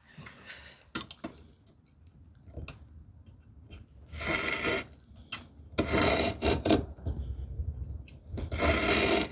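A marking knife drawn along wood into the corner of a dry-fitted mortise and tenon joint, scoring the miter line in three strokes of about a second each, after a few light taps.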